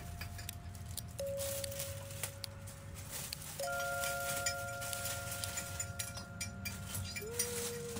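Soft background music with long held notes that change every few seconds, over scattered light clicks and clinks.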